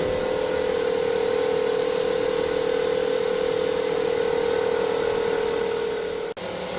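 Steady hiss and hum of the smoke machine's pump pressurizing the truck's intercooler and charge-air piping for a leak test. One constant mid-pitched tone runs through it, and it cuts out for an instant near the end.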